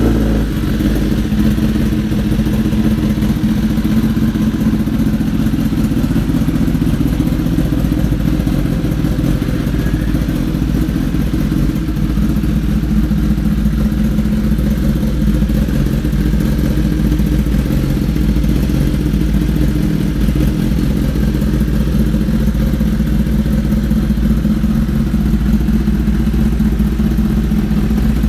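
Kawasaki ZX-10R's inline-four engine idling steadily through an M4 GP exhaust, with an even pitch and no revving.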